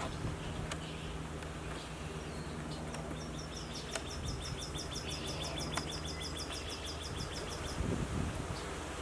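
A fast, high trill of short chirps, about seven a second, from a small animal outdoors. It starts about three seconds in and stops near the end, over a steady low hum.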